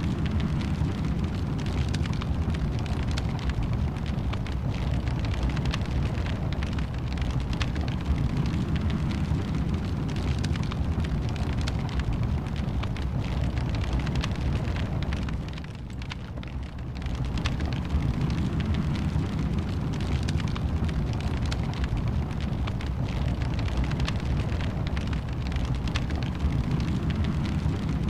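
Wood fire burning in a fireplace: a steady low rumble with frequent crackles and pops, briefly dropping in level for about a second a little past halfway.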